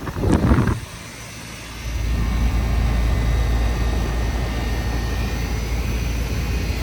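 2003 Lennox Merit 2-ton heat pump outdoor unit during its defrost cycle. A noisy rush in the first second cuts off, and about two seconds in a low, steady machine hum comes on and keeps running.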